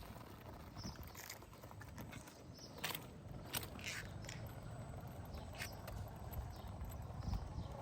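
Off-road RC car moving over rough ground: scattered clicks, knocks and scrapes over a low rumble, the sharpest about three seconds in and again half a second later.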